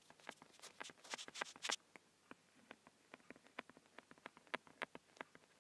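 Stylus tapping and scratching on a tablet screen while handwriting. There is a dense run of quick strokes over the first two seconds, then sparser light ticks.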